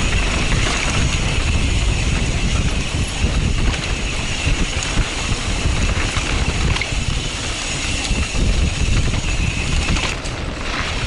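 Wind rushing over a helmet-mounted action camera's microphone and tyres rolling over dirt singletrack as a mountain bike descends: a steady, loud rumble.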